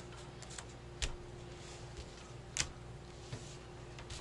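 Playing cards being laid down on a table: a few light taps and clicks, the two clearest about a second in and about two and a half seconds in.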